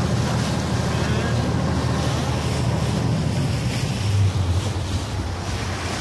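Passenger ferry under way: a steady low engine rumble that changes note about four seconds in, with water rushing past the hull and wind buffeting the microphone.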